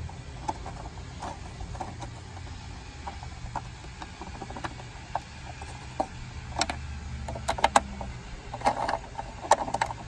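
Scattered metal clicks and taps from a socket and extension being worked on an engine-cover fastener, several in quick succession in the second half, over a low steady rumble.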